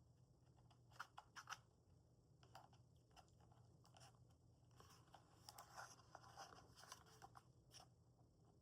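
Faint scattered clicks and light rustling from hands handling the parts and packaging of a wireless microphone kit being unboxed, with clusters about a second in and again over the last few seconds.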